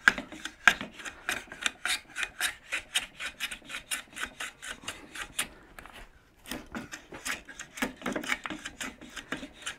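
A No. 5 hand plane shaving a small piece of wood in quick short strokes, about four a second, with a short pause about six seconds in. The plane is taking the old finish off reclaimed cabinet wood.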